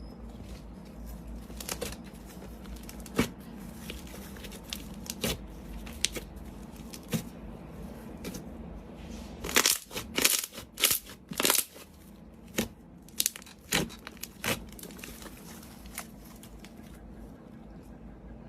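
Slime being squished and poked by hand, giving scattered sticky clicks and pops, with a run of louder snapping pops about halfway through.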